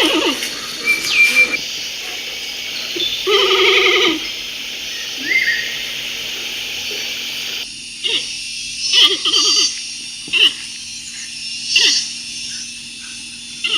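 Bear vocalizations: a longer pitched call about three seconds in, then a string of short pitched calls in the second half.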